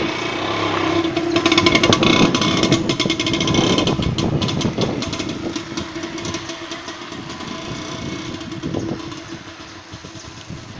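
Plastic bottle flapping against a moving bicycle wheel's spokes: a rapid clatter that imitates a small motorcycle engine, loudest about two seconds in and fading away as the bike moves off.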